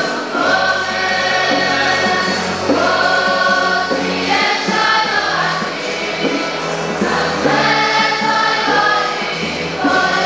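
A mixed choir of young voices sings a worship song together in held, sustained phrases, with guitar accompaniment.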